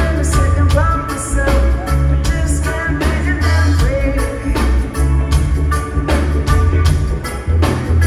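Live reggae-rock band playing: a heavy bass line under drums keeping a steady beat, with electric guitar and keyboard over the top.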